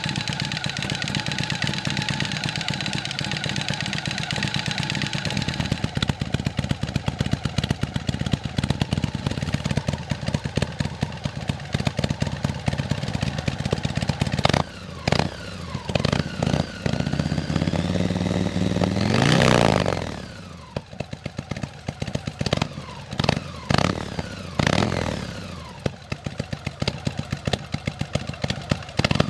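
Motorcycle engine running through an Akrapovic exhaust. It idles steadily for about the first half, then takes several quick throttle blips, and one longer rev climbs and drops back to idle. A few more sharp blips follow near the end.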